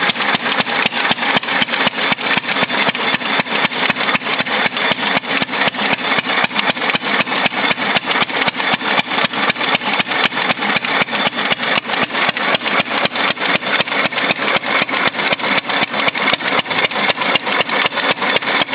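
1928 Fairbanks Morse portable generator set's engine running at a steady speed, with an even, rapid exhaust beat.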